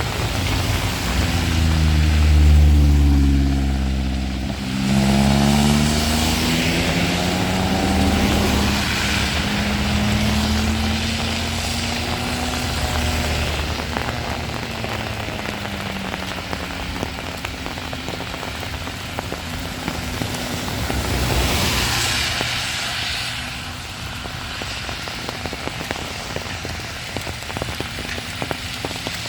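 A motor vehicle's engine running close by in heavy rain: its pitch falls over the first few seconds, rises again about five seconds in, then holds and fades away by about sixteen seconds. Steady rain hiss runs underneath, with a brief louder rush of noise around twenty-two seconds in.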